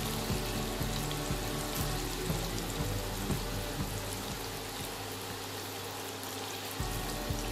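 Chana dal cakes frying in hot white vegetable oil in a kadai: a steady bubbling sizzle with small crackles. Background music plays underneath.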